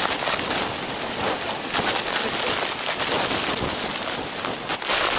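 Falling and splashing water at a waterfall: a loud, even rush with irregular crackling spatters throughout.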